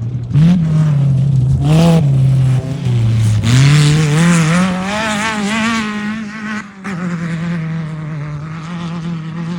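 Off-road race vehicle's engine running hard, its pitch climbing, dropping and wobbling quickly with the throttle. A little under seven seconds in, the sound switches abruptly to a steadier, slightly quieter engine note.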